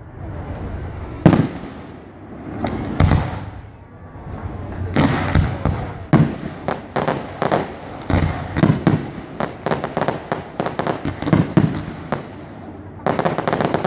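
Aerial firework shells bursting in the sky: two single booms, about one and three seconds in, then from about five seconds a rapid run of many bangs and crackles, with another cluster of bursts near the end.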